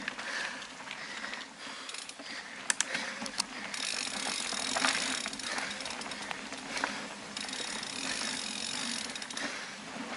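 Mountain bike ridden along a dirt forest trail: tyres hissing over the dirt while the chain and drivetrain rattle, with scattered sharp clicks and knocks from bumps and roots.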